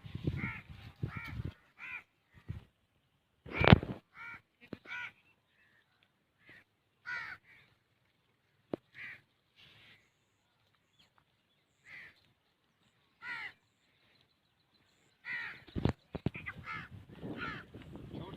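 Crows cawing: short, harsh calls repeated at irregular intervals, one louder call about four seconds in, and the calls coming thicker near the end.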